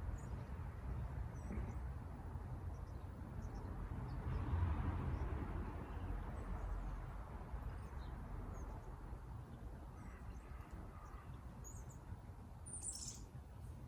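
Outdoor ambience of a steady low rumble with scattered short, faint bird chirps; one louder, high chirp comes near the end.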